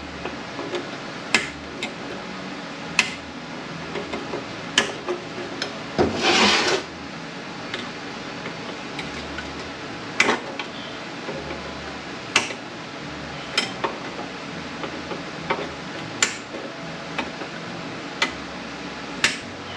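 Metal-on-metal clicks and scraping as a tool works the snap ring that holds the rear band drum out of its groove inside an A500 automatic transmission case. There are sharp clicks every couple of seconds and one louder, harsh scrape about six seconds in.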